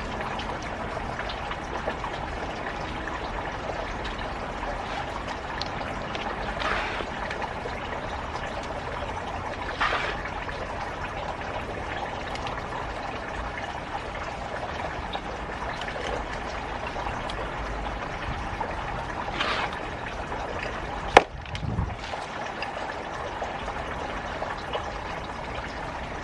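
Water running in a steady trickle, with a few brief louder splashes and one sharp click near the end.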